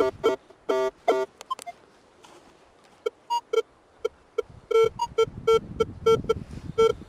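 Minelab X-Terra 705 metal detector giving short, low-pitched target beeps as its coil sweeps over buried metal. The beeps come in quick runs, fall mostly quiet for a couple of seconds apart from two, then return as a regular pulse of about four a second.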